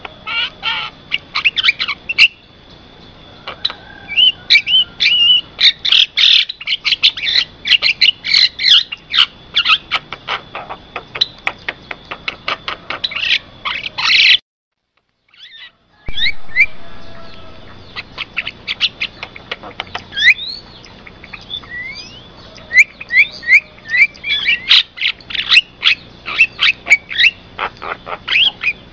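Javan myna (jalak kebo) singing a fast, dense jumble of chirps, short rising whistles and harsh clicks. The song breaks off completely for about a second and a half around the middle, then resumes. A thin steady high tone runs underneath.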